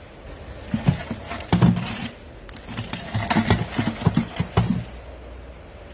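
A run of irregular short knocks and taps over a steady room background, clustered from about a second in until shortly before the end.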